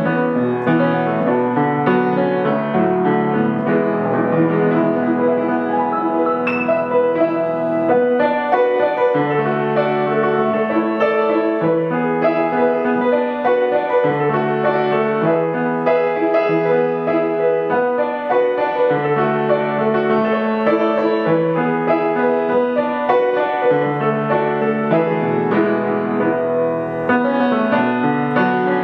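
Blüthner baby grand piano being played: a continuous flowing piece of chords and melody over bass notes that change about once a second. The piano is playing nicely.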